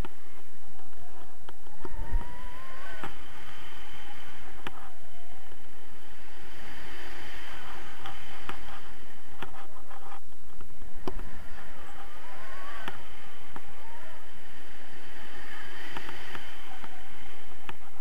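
Wind rushing over the camera microphone in paraglider flight, a steady noise with a faint whistling tone that glides up and down and a few light knocks.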